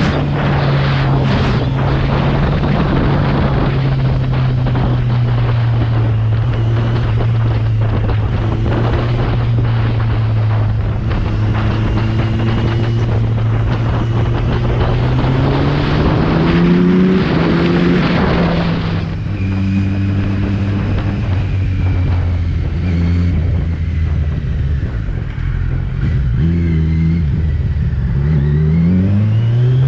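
Kawasaki Z900 inline-four engine and exhaust heard while riding, with strong wind noise: the engine holds a steady cruise with its pitch slowly easing down. About halfway through it revs up and shifts, then runs lower with less wind. Near the end it accelerates again, pitch rising in steps through the gears.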